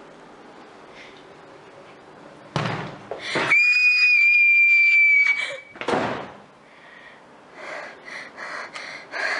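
A girl's loud, high-pitched scream held for about two and a half seconds, starting a few seconds in after a sharp rush of breath, then a gasp and quick, heavy panting breaths near the end.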